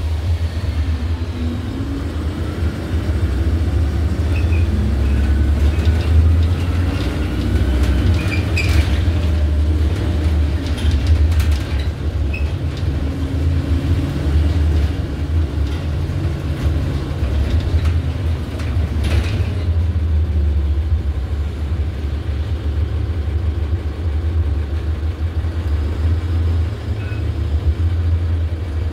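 Iveco Urbanway city bus heard from inside the passenger cabin while driving: a steady low engine and road rumble, its engine note rising and falling as the bus speeds up and slows. A few sharp clicks sound over it.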